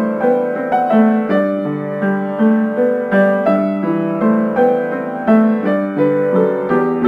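Background piano music: a slow, even stream of single notes and chords, a few each second.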